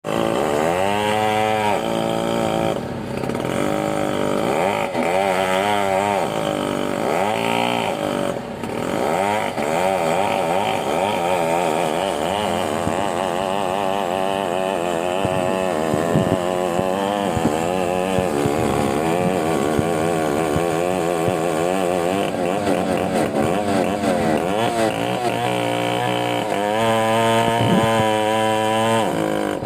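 Chainsaw engine revving up and down over and over, its pitch climbing and falling every second or two as the throttle is worked.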